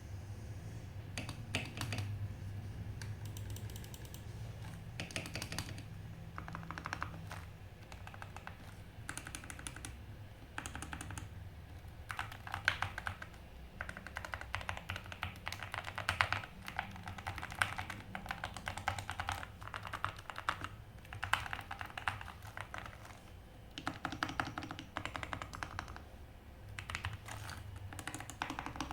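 Typing on a Paradox Gaming SK64 mechanical keyboard with linear Gateron Silver switches and PBT keycaps. The keys clack in quick runs of strokes, with short pauses between runs.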